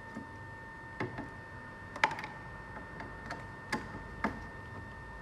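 Screwdriver and hand tools clicking and tapping on the metal of a circuit board assembly while tight screws are undone: about eight irregular sharp clicks, the loudest about two seconds in. A steady high tone hums underneath.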